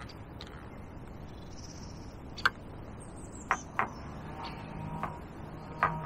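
A few sharp, irregular clicks, with a thin high bird call that falls slightly about halfway through.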